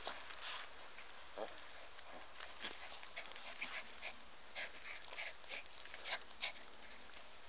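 Small dogs scuffling about in dry grass on a dirt track: a scatter of faint rustles and crackles, with a short whimper about one and a half seconds in and another soon after.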